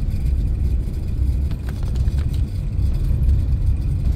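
Steady low rumble of a car's engine and road noise, with a few faint ticks about a second and a half to two and a half seconds in.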